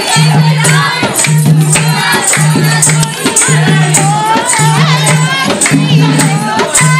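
Dehati (rural north Indian) folk dance song: singing over a steady percussion beat with rattling jingles, and a low tone pulsing on and off about once a second.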